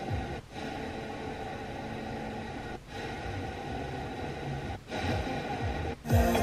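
Car radio FM tuner stepping through the band: weak, noisy reception of a distant station, muting briefly about four times as the frequency is stepped, until a strong local station comes in much louder and clearer near the end.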